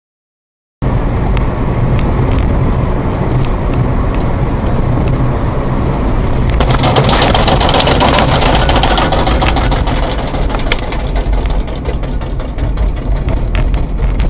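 Dashcam recording of a car's road, engine and wind noise, a loud steady rumble with scattered clicks, cutting in abruptly about a second in and swelling for a couple of seconds around the middle.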